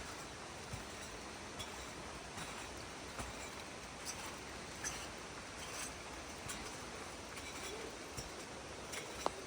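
Footsteps at an even walking pace, a soft tick about every 0.8 seconds, over a steady hiss of forest ambience, with one sharper click near the end.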